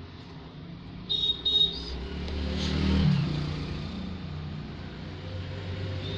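Road traffic noise picked up in the background: a low rumble with two short high-pitched beeps about a second in, then a vehicle passing that is loudest about three seconds in.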